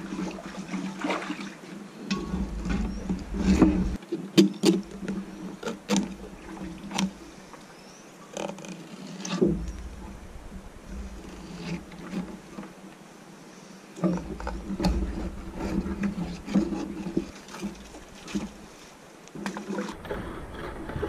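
Knife and fish handled on a stainless-steel bench while filleting: scattered clicks and knocks of the blade and fish against the steel, over a low steady hum and spells of low rumble.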